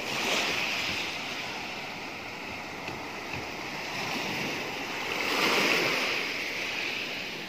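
Ocean surf breaking and washing up the shore, a steady hiss that swells about half a second in and again, loudest, around five and a half seconds in.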